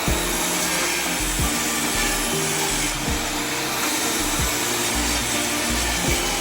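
An electric woodworking power tool running steadily on wood, with background music under it.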